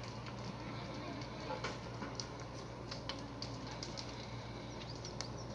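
A building fire crackling: scattered sharp pops and crackles at irregular intervals over a steady low hum and background noise.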